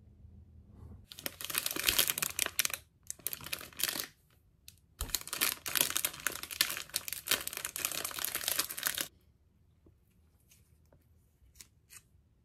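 Plastic wrapper of a packaged cheesecake crinkling and tearing as it is pulled open by its tear strip, in two long stretches, then a few faint rustles near the end.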